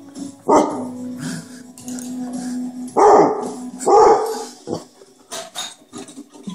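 Clumber Spaniel barking: three loud barks about half a second, three and four seconds in, then a shorter one just after.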